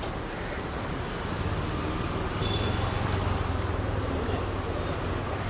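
Street traffic noise with a motor vehicle's engine hum that grows louder towards the middle, then eases, over wind on the microphone.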